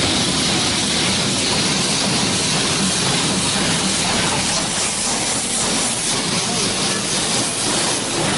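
Touchless car wash spray jets hitting the car's glass roof and windows, heard from inside the cabin as a steady, even hiss of water and foam.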